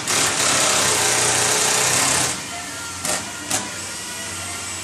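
A shop power tool runs steadily with a loud hiss for about two seconds and then stops, followed by two brief bursts.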